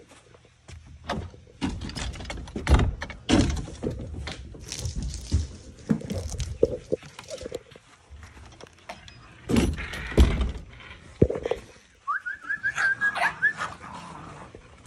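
Footsteps across a grass lawn, with irregular thumps and knocks from a hand-held phone as it swings. About twelve seconds in there is a quick run of short, high, rising squeaks.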